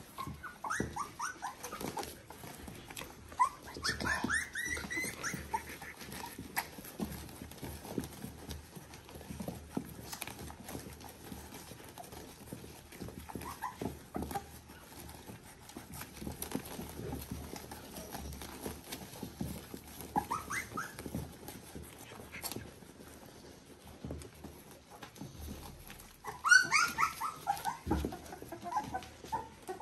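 Three-week-old Border Collie puppies squeaking and whimpering in short high calls, a few times through, with a loud cluster about four seconds in and another near the end, amid soft rustling and shuffling on the bedding.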